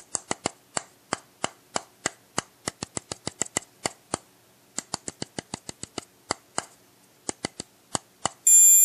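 Sharp, irregular tapping on the plastic housing of an Easypet EP-28A bark control collar, about four taps a second with a brief pause midway, used to imitate the vibration of a bark. Near the end the collar answers with a loud, steady, high-pitched beep: its first-stage audible correction has been triggered.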